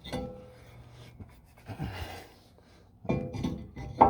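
Steel brake rotor being handled and slid onto the hub's lug studs: metallic clanks, the first one ringing briefly, with louder knocking near the end.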